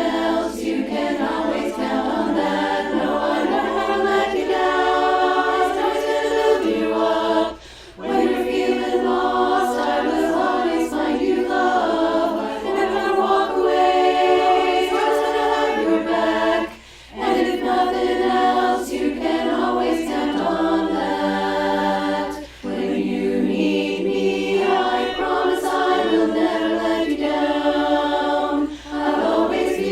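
Choir singing a cappella in sustained chords, with short breaks between phrases a few times.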